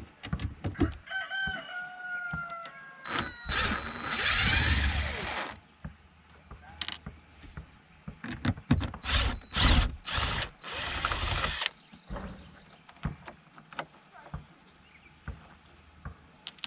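Cordless drill driving screws out of a boat's dash panel: one run of about two seconds, then a string of short trigger bursts, with clicks and knocks of the screws and panel between. A rooster crows once about a second in, its call falling slightly in pitch.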